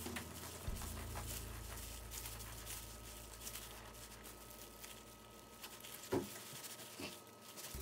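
Serrated bread knife sawing through a bagel on a wooden cutting board: faint, scratchy rasping strokes, with a sharper knock a little after six seconds.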